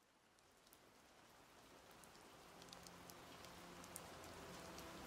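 Near silence, then a faint even hiss with scattered light ticks fades in slowly and keeps rising.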